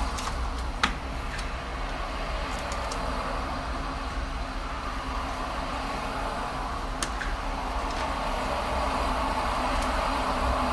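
Steady motorway traffic noise, swelling a little toward the end, with a few light clicks near the start and once about seven seconds in.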